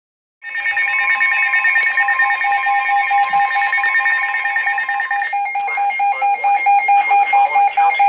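Several weather alert radios sounding their warning alarms at once, signalling an incoming flash flood warning: overlapping steady alert tones with a rapid beeping, starting half a second in. About five seconds in, the steady tones stop and a fast pulsing beep carries on.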